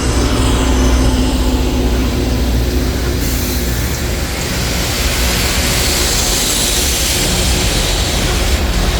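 Loram rail grinder train going by at close range: a steady loud rumble with a broad hissing noise on top, which grows brighter about three seconds in.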